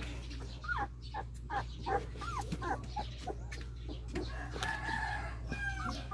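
Young German Shepherd x Belgian Malinois puppies whimpering: a string of short, high squeaks that rise and fall, with a longer drawn-out whine about four and a half seconds in.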